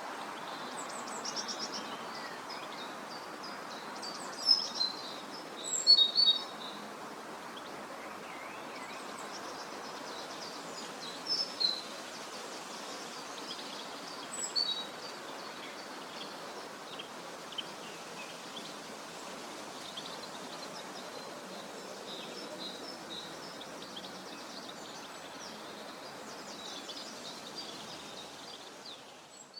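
Small songbirds chirping and trilling over a steady outdoor background hiss, with a few louder, nearer chirps about four to six seconds in and again around eleven and fourteen seconds; the sound fades out at the end.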